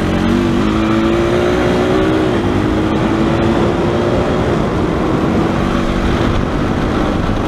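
ATV engine running steadily at road speed, its note holding with a slight dip a couple of times, over wind noise on the microphone.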